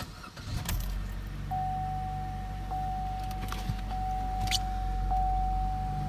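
2015 Chevrolet Cruze engine starting and settling into a fast idle, heard from inside the cabin. Through it runs a steady electronic warning tone from the dash, broken briefly about once a second. A cylinder 4 misfire (code P0304) is logged on this engine.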